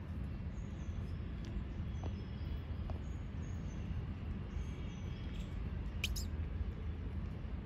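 Outdoor background: a steady low rumble with faint, short high chirps and squeaks here and there, and one brighter squeak about six seconds in.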